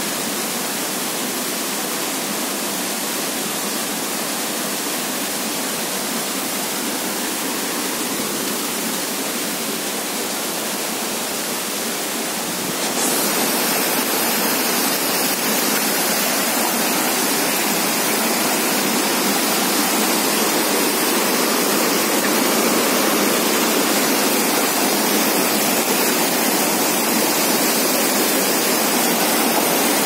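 Steady rush of a tall waterfall pouring into a rocky pool. About thirteen seconds in, the sound turns suddenly louder and hissier: white water tumbling over rocks in the stream below.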